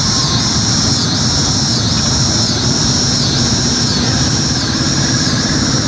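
Motorcycle engines running at low revs, a steady low rumble, with a high buzz pulsing a little slower than once a second above it.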